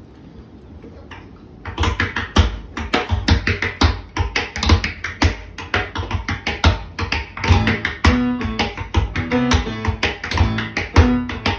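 Tap dancing: rapid, dense tap-shoe strikes start about two seconds in and keep up a fast rhythm. From about halfway through, sustained keyboard notes accompany the taps.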